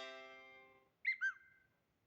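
Samsung Galaxy A52 notification tones played one after another. The ringing tail of a chime-like tone fades out, then about a second in a short two-note electronic blip bends downward in pitch.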